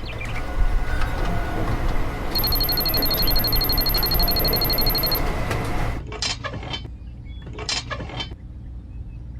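A steady machine noise for about six seconds, with a rapid, high-pitched electronic beeping over it for about three seconds starting a couple of seconds in. The noise then drops, and a few short, sharp sounds follow.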